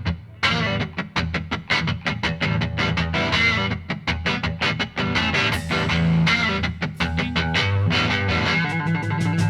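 Background music: an upbeat guitar track with quick strummed strokes over a steady bass line.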